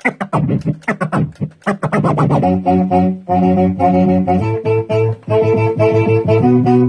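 DJ scratching on a DJ controller's jog wheel. For about the first two and a half seconds there are rapid back-and-forth scratch strokes. After that a melodic music loop plays, cut up by short rhythmic breaks.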